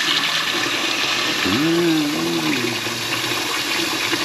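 Kitchen faucet running water into the sink, a steady rush. About a second and a half in, a short pitched tone rises and falls for about a second over it.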